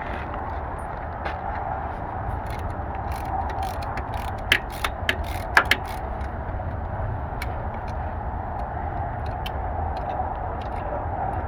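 Hand tools clicking and clinking on metal a handful of times near the middle, over a steady background hum.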